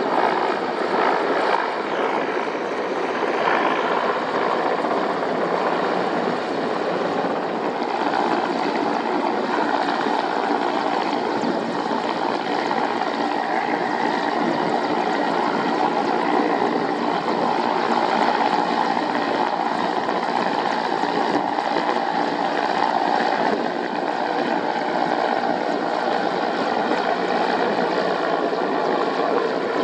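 Mil Mi-8 helicopter heard from on board: its twin turboshaft engines and rotor make a steady, loud drone with faint high whining tones running through it.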